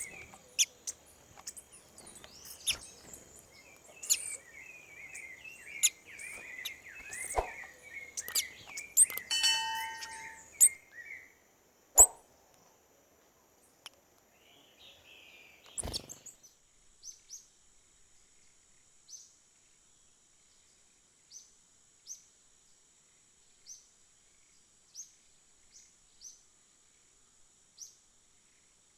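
Small birds twittering and chirping, broken by several sharp clicks in the first half. After a sudden cut a little past halfway, only short, thin, high call notes remain, one every second or two, over a faint steady high hum.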